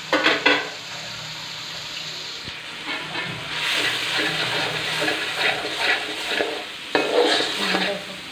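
A spatula scraping and stirring ground spices and onion-ginger-garlic paste as they fry in hot oil in a metal wok-shaped pan, with a steady sizzle under repeated scraping strokes. The strokes are loudest at the start and again about seven seconds in.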